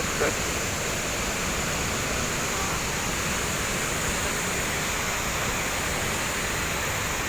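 Tegenungan waterfall's steady rush of falling water, an even roar with no change in level.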